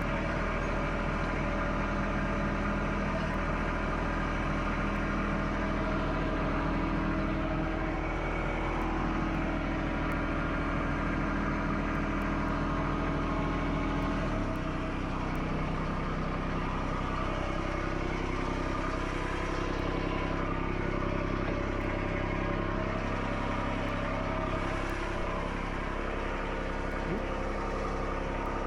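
Skid steer engine running steadily, with a change in the engine note about halfway through.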